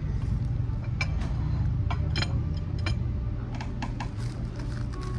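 A few light clicks and taps over a steady low room hum, then a short run of crisp crunches about four seconds in as the fried crust of a samosa is bitten.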